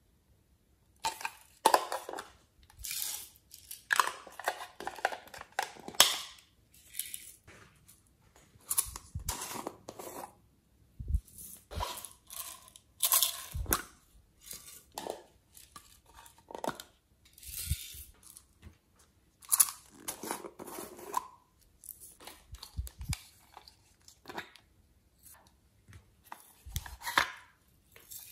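Small plastic containers being handled and tipped, and sequins and glitter shaken out of a plastic cup onto slime in a glass tray. It comes as a string of irregular crinkly, rustling bursts with short pauses between them and now and then a light tap.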